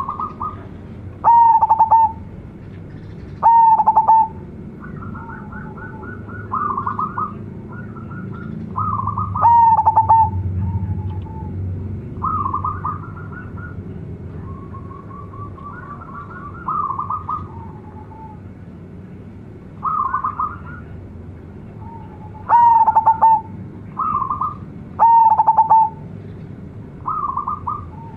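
Zebra dove (perkutut) singing its cooing song: short phrases of quick staccato notes repeated every few seconds, a few of them loud and the rest softer.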